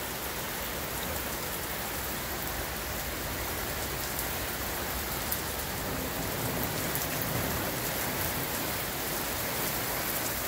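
Heavy rain pouring down in a steady hiss, a downpour during a thunderstorm.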